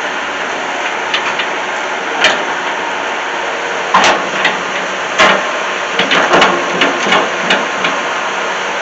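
Bobcat 873 skid steer running steadily, with a dozen or so irregular sharp knocks and clanks from about a second in, bunched most thickly around the middle.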